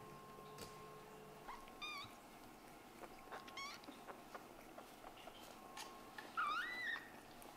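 Scottish Fold–British Shorthair kittens mewing: three short, high-pitched meows about two, three and a half, and six and a half seconds in, the last the loudest and bending up and down in pitch, with a few light taps between.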